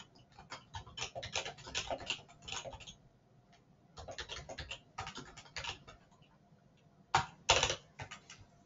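Typing on a computer keyboard: three runs of quick keystrokes, with short pauses about three and six seconds in, and a few harder strokes near the end.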